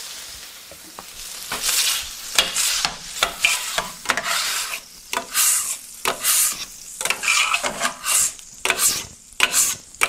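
Water sizzling on a hot flat-top griddle, fading over the first second. Then, from about a second and a half in, quick repeated scrubbing strokes across the wet griddle plate, about two a second, as stuck-on cheese is cleaned off.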